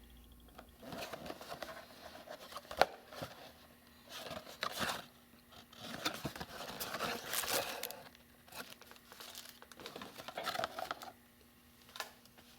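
Crinkling, rustling handling noise in bursts, with scattered clicks; a sharp click about three seconds in is the loudest.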